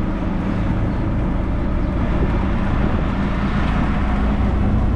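Auto-rickshaw engine running steadily as the rickshaw drives along, heard from inside the open cab with a steady low hum and road noise.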